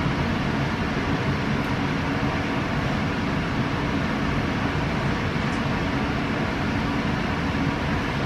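Steady hum and hiss inside a stopped electric train car, from its air conditioning and idling equipment.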